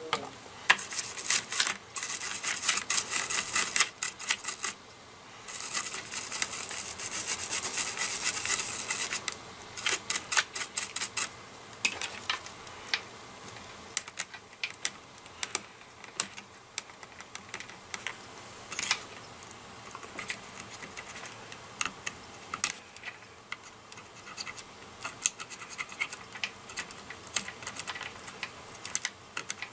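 A stiff toothbrush scrubs a circuit board wet with isopropyl alcohol, cleaning flux off freshly resoldered joints. The brushing comes in two long stretches of brisk scratching with a short break between them. After that come scattered small scratches and clicks as a metal dental pick scrapes at the solder joints.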